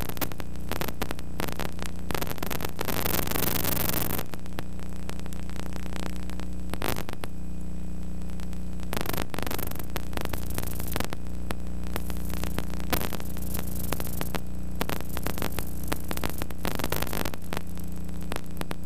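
Steady electrical mains hum with static hiss and scattered crackling clicks, the noise of an old film or tape transfer with no live sound of the game. The hiss eases about four seconds in, leaving the hum to the fore.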